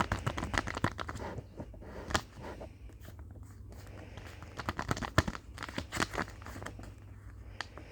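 Sanrio blind bag packaging being torn open and crinkled by hand, sharp crackling in two spells with a lull between.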